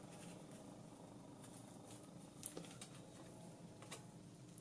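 Faint handling noise of gloved fingers on a small circuit board, with a few light clicks, the sharpest about two and a half seconds in, over a steady low hum.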